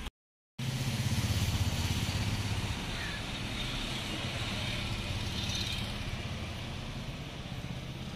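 Steady low rumble of a motor vehicle engine running nearby, starting about half a second in after a brief dropout and slowly fading, over light outdoor hiss.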